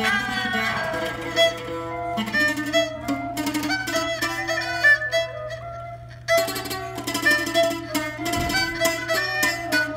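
Thai traditional music: a jakhe, the Thai floor zither, is plucked in a run of quick notes, with a saw u coconut-shell two-string fiddle bowing along. The playing breaks off for a moment about six seconds in, then resumes.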